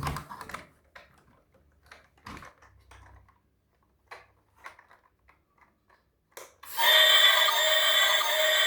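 Light clicks and taps of plastic being handled, then about two-thirds of the way in a toy vehicle's electronic sound module switches on: a loud, steady, high-pitched electronic sound with several tones at once.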